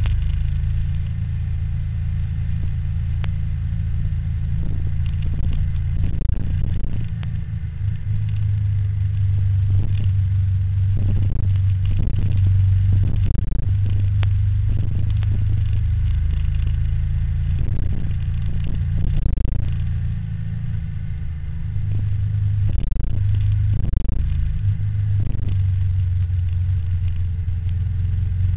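Steady low rumble of riding along a road, wind and road noise on the microphone, swelling and easing in stretches, with scattered short knocks and bumps.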